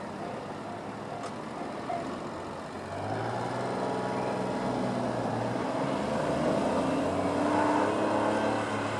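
A road vehicle's engine, a steady running hum that grows louder from about three seconds in as it comes near.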